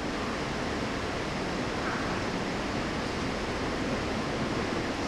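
Steady, even background hiss, with no distinct events.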